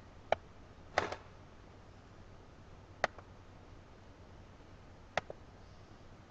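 Quiet room tone broken by a few short, sharp clicks or taps, about four of them spread out, one of them doubled.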